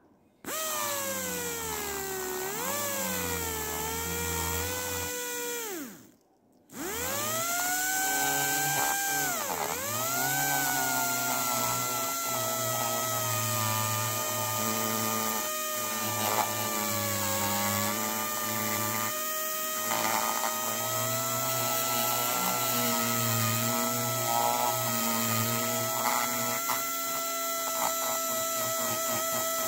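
Dental drill whining with a steady pitch that sags and recovers as it bears on the tooth, stopping briefly about six seconds in and then running again.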